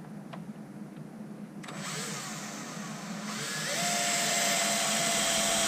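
Power drill running, starting about two seconds in and getting louder a second or so later as it works into the material, with a steady whine.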